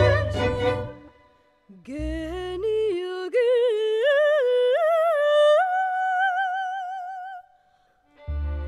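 Operatic soprano singing a near-unaccompanied phrase that climbs step by step through short notes with vibrato to a long held high note. Accompanied music breaks off about a second in and comes back in near the end.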